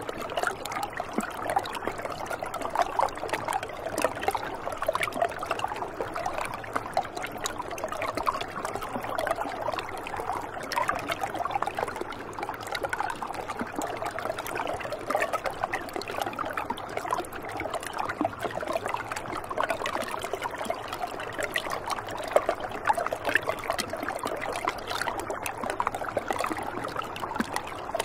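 Shallow, ice-edged stream trickling and gurgling over rocks, a steady flow dense with small splashes.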